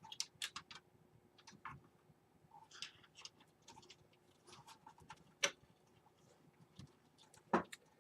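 Scattered light clicks and taps of computer parts being handled as a hard drive and its cables are fitted into a mini-ITX case, with a sharper tap about five and a half seconds in.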